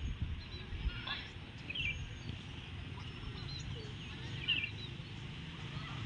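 Outdoor ambience: a steady low rumble of wind on the microphone, with a few short, high chirping calls scattered through it.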